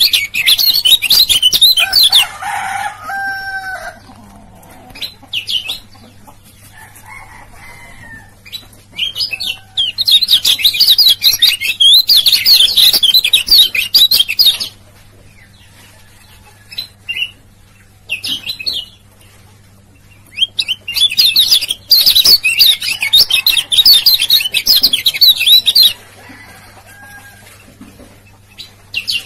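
Male kecial kuning, a white-eye, singing its ciak-ciak song in three long bursts of rapid, high chattering, with short chirps between. This is the song used as a lure to set other kecial kuning singing.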